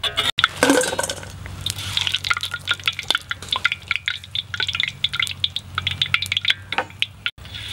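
Hot frying oil crackling and popping in quick, irregular sharp ticks, with a louder clatter of metal against metal about a second in.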